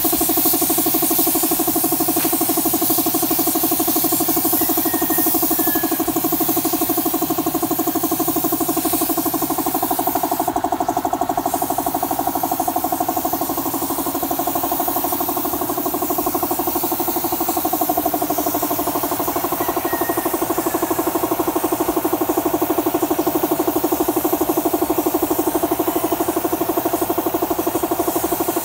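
Air compressor running steadily under the hiss of an air spray gun spraying a finish coat. The spray hiss stops for about a second around ten seconds in.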